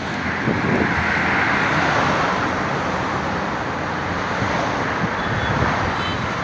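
Road traffic noise: tyre and engine noise from passing vehicles, swelling about a second or two in as a vehicle goes by, then easing.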